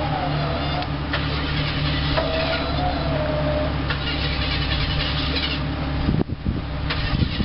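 Off-road rock crawler's engine running at a steady idle. Its sound dips out briefly about six seconds in, then carries on.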